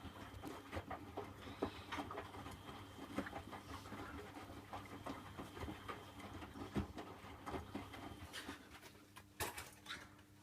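Miele W Classic WDA110 washing machine tumbling its load in the wash phase: irregular soft knocks and taps from the turning drum over a steady low hum.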